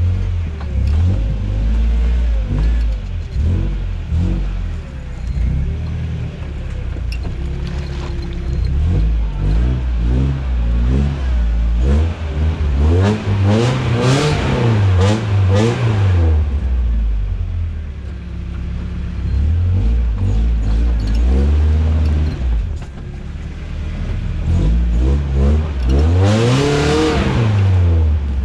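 Toyota truck's engine running and revving up and down, its pitch rising and falling, with two stronger swells of throttle about halfway through and near the end.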